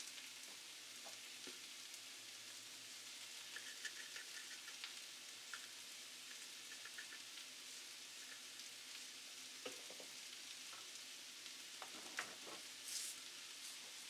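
Cucumber, carrot and scrambled egg sizzling faintly in a nonstick frying pan, with scattered small clicks and taps from a spice shaker being shaken over the food.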